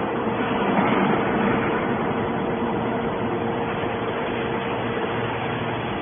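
Hydraulic metal scrap baler running, a steady hum with a held whine over an even mechanical noise.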